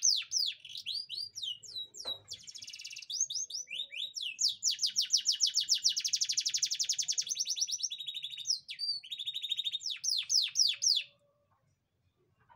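Domestic canary singing: quick runs of repeated descending notes and a long, very fast trill in the middle of the song, which stops suddenly about a second before the end.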